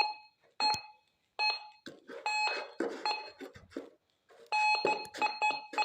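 Metal detector giving short beeps on a non-ferrous target while dirt is scraped and shifted around it. Near the end it sounds a rapid string of beeps, several a second.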